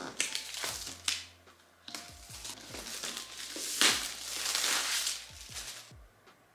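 Clear plastic shrink-wrap being peeled and torn off a laptop box, crinkling in irregular bursts. It is loudest about four seconds in and stops about six seconds in.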